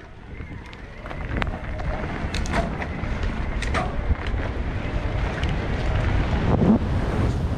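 Wind rushing over the camera microphone and the rumble of an e-mountain bike's tyres on a dirt forest trail, growing louder over the first few seconds as speed builds. Sharp clicks and clatters from the bike rattling over roots and bumps come throughout.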